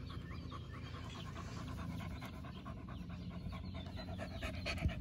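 A puppy panting with her mouth open, a steady run of quick, even breaths, the owner expecting that she will want water next.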